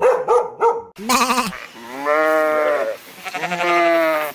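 A dog barks three times in quick succession, then a sheep bleats: one short bleat followed by two long, wavering bleats.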